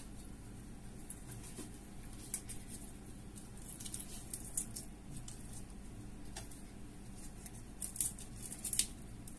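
Small cooked prawns being peeled by hand: faint, irregular crackling and snapping of the shells as they are pulled off, with a few sharper clicks near the end.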